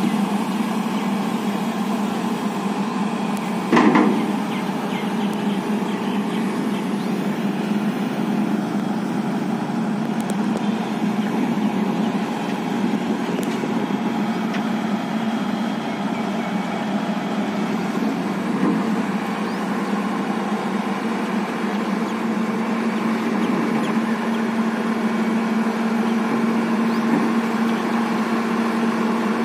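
JCB JS140 tracked excavator's diesel engine running steadily as the machine levers itself on its boom and bucket at the edge of a flatbed truck. A brief loud sound stands out about four seconds in.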